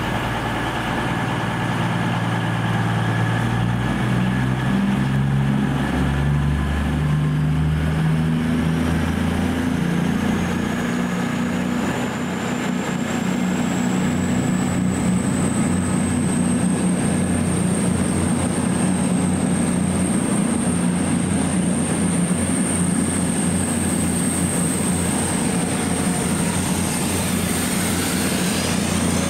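A train running close by, with a loud, steady deep drone whose low tones step up and down. A thin high whine rises over about ten seconds and then holds steady.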